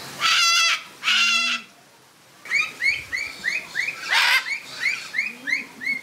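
Parrots calling. Two loud, harsh screeches of about half a second each come in quick succession, then a rapid series of short chirps at about three a second. Another harsh screech breaks in about four seconds in.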